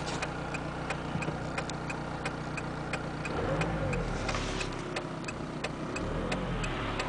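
2002 VW Beetle TDI's turbodiesel engine idling at a standstill with a steady ticking, about three ticks a second, and revved up and back down twice. Revved at a stop it makes no abnormally loud noise, only a low ticking, so the droning that starts at road speed is not from the engine.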